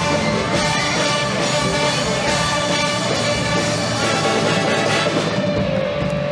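Loud live band music playing steadily, with held notes over a drum beat.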